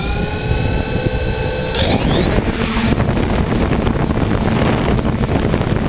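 Multirotor drone's electric motors and propellers whining steadily at low throttle, then speeding up about two seconds in with a rising whine and loud rushing propeller wash as the drone lifts off.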